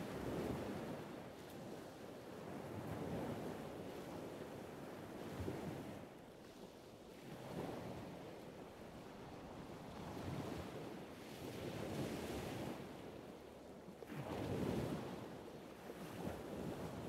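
Faint ocean surf: waves washing in, swelling and fading every two to three seconds.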